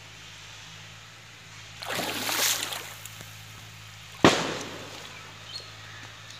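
Water sloshing and splashing as hands work through shallow pond water: a longer sloshing splash about two seconds in, then a sharp single splash just past four seconds, the loudest, over a steady low hum.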